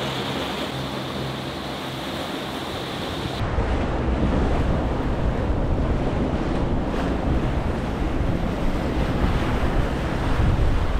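Boat underway: its outboard motor runs with a steady hum over the rush of its wake. About three and a half seconds in the sound cuts to heavy wind buffeting the microphone over the wash of waves.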